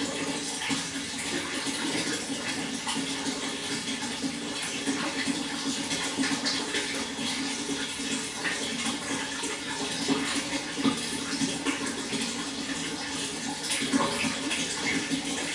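Water flowing steadily, with many small splashes and gurgles throughout.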